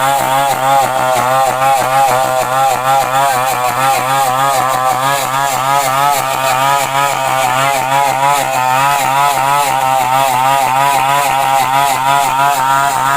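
Chainsaw engine running continuously, its pitch warbling up and down about three to four times a second.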